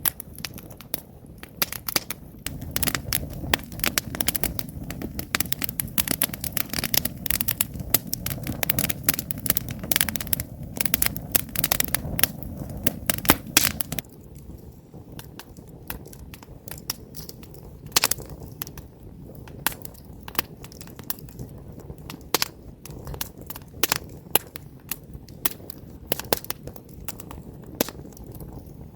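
Wood campfire crackling, with many sharp snaps and pops. A low steady rush lies under the first half and stops suddenly about halfway through; after that the crackles are sparser, with one louder pop a few seconds later.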